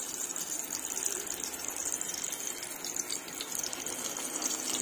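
Oil sizzling steadily around a steamed eggplant frying in a pan, with small crackles.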